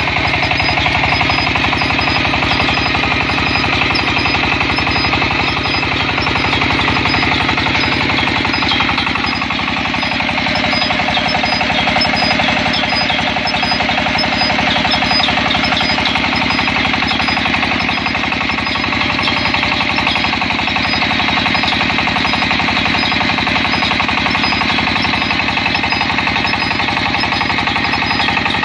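Water well drilling rig running with a fast, steady hammering that goes on without a break.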